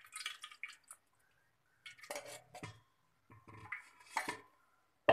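Metal kitchen utensils clinking and scraping against a mesh strainer and pan in a few short bouts as ground ragi paste is poured and worked through, with a sharp knock at the very end.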